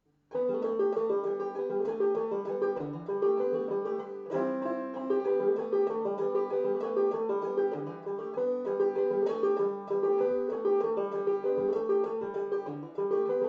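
Five-string banjo played clawhammer style in open G tuning (gDGDB), starting abruptly and going on as a steady old-time fiddle tune with a ringing high drone string.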